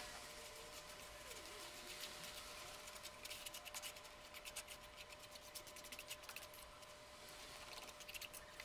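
Faint scratchy scraping of a metal palette knife spreading white acrylic paint across stretched canvas: a run of fine rapid scratches that gets busier about three seconds in.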